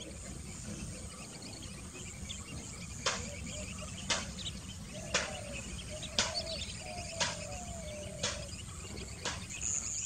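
Wetland ambience of steady insect chirring, with a sharp short call or click repeating about once a second from about three seconds in, and a few short low calls in the middle.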